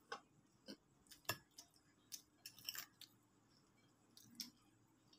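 Faint, scattered crackles and clicks of crispy fried chicken being torn apart by hand and chewed. The loudest come a little over a second in and around the middle.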